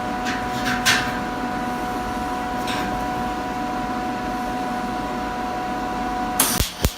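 Steady machine hum with a few light clicks, then music starting near the end.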